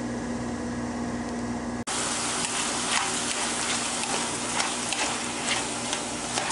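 Chicken sausage, diced tomato and onion sizzling in a skillet, with a spatula scraping and stirring through them in short strokes. For the first two seconds, before the sizzle cuts in, there is only a steady low hum.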